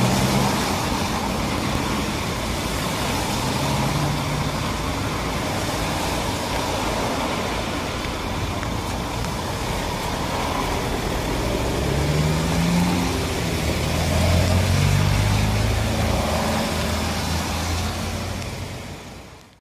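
Road traffic on a wet street: a steady hiss with the low hum of passing vehicle engines, one rising in pitch and then growing louder about two-thirds of the way through.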